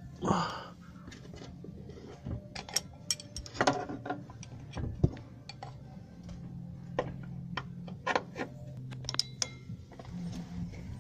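Irregular metallic clicks and clinks of a spanner working on the tail shaft bolts and 12 mm nuts at the diff flange while they are tightened, over a low steady hum.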